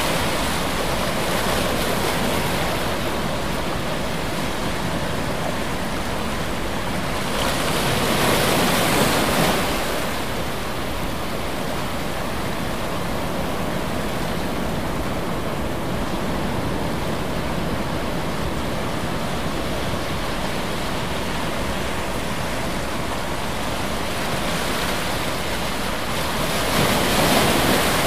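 Steady rushing noise of water, swelling louder twice: about eight seconds in and again near the end.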